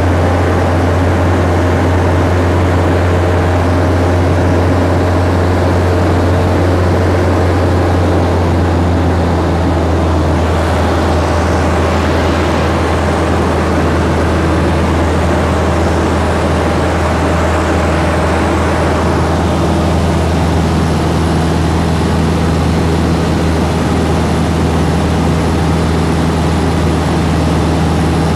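Piper PA-18 Super Cub's piston engine and propeller droning steadily in flight, heard from inside the cabin.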